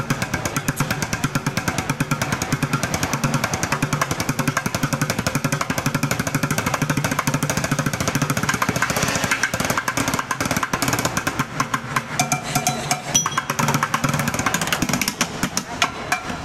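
Street bucket drumming: drumsticks beating a fast, continuous roll on upturned plastic buckets and tins, growing sparser and more broken near the end.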